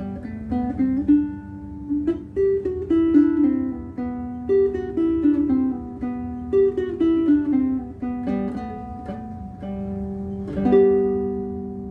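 Bruko mahogany baritone ukulele with a bone saddle, fingerpicked: a run of single plucked notes with some chords, the notes ringing on, and a fuller strummed chord about ten seconds in.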